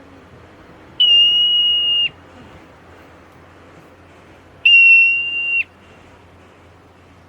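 Two long, shrill, steady whistles, each about a second long and about three and a half seconds apart, each dipping in pitch as it cuts off: a marmot's alarm whistle.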